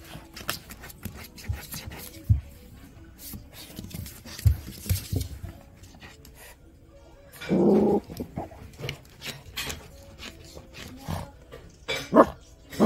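Cavalier King Charles Spaniel puppy sniffing and scuffling with its head pushed into a gap under furniture, making a string of small clicks and scrapes. It gives a short low growl about seven and a half seconds in and another near the end.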